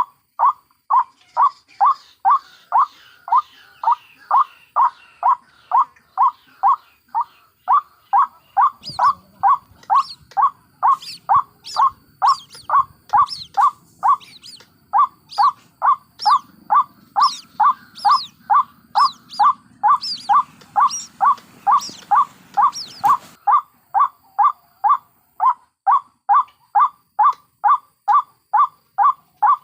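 White-breasted waterhen calling: one low call repeated evenly about twice a second, a lure recording for trapping the birds. From about 9 to 23 seconds, higher chirps, the chicks' calls, join in over a faint low rumble.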